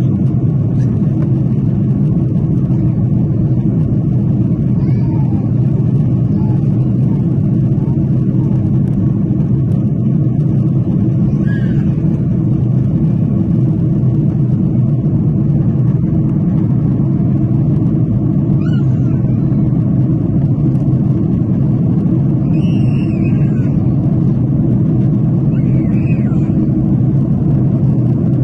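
Boeing 737 cabin noise during the climb after takeoff: a steady, loud rumble of the engines and airflow heard from a window seat, with a few faint, brief higher sounds over it near the middle and end.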